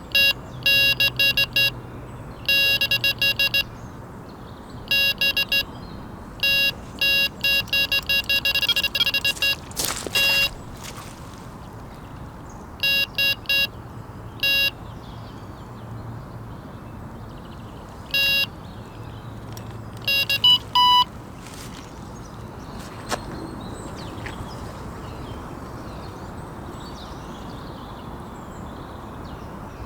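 Electronic carp bite alarm sounding in rapid strings of high beeps, in bursts over about twenty seconds before falling silent, as a fish pulls line off the rod: a run.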